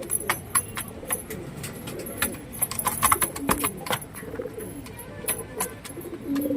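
Domestic pigeons cooing, low wavering calls, with many sharp clicks and taps scattered among them.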